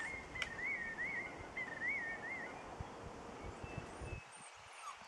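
A puppy whining: a high, wavering whine that rises and falls several times, in three short stretches over the first two and a half seconds, over a low rustle that drops away about four seconds in.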